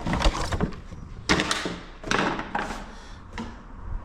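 Handling noise: a few knocks and thuds as objects are picked up and set down on a hard surface.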